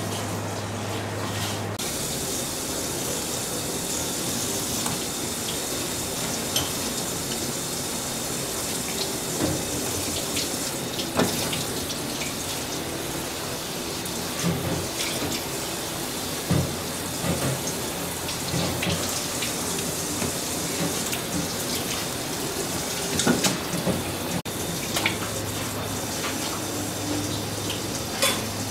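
Tap water running steadily onto a wet eel on a wooden cutting board, with occasional short knocks of a knife on the board. A low hum sounds in the first two seconds and again near the end.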